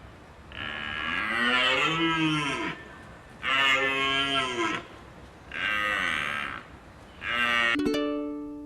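A deer calling: four long, low bellows, each rising then falling in pitch, the first the longest.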